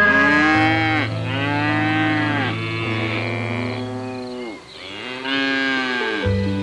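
An animal making a series of long calls, each rising and then falling in pitch, over sustained background music.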